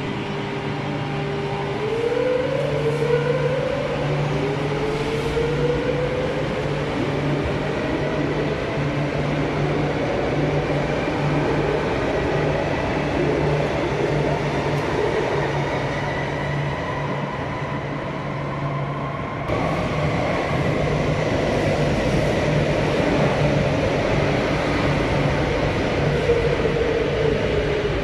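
Madrid Metro series 8400 electric train accelerating away, its traction motors whining in rising glides over the rumble of wheels on rail, with a steady low hum underneath. Near the end the whine starts to fall again.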